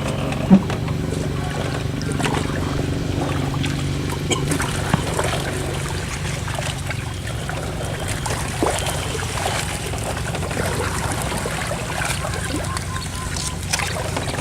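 Water trickling and splashing around a small boat on a river, over a steady low hum, with scattered small knocks and splashes.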